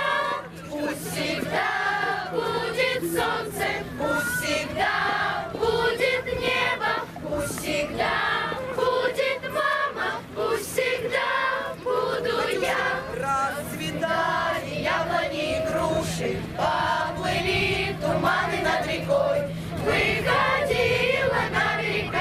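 A group of voices singing a song with musical accompaniment, with a steady low hum beneath it.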